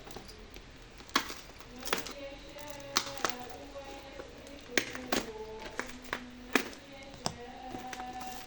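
Sharp clicks and taps of plastic packaging being handled and opened, about eight at irregular intervals, over faint background music.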